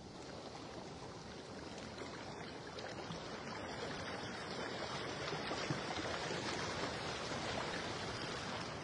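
Underwater rushing of moving water, picked up by a camera held below the surface: a steady hiss that slowly grows louder.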